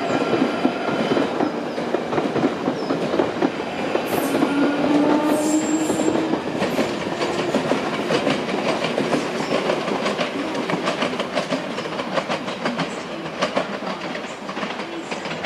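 London Underground 1995-stock tube train running over junction pointwork, its wheels clattering rapidly over the switches and crossings. A high wheel squeal fades out in the first few seconds.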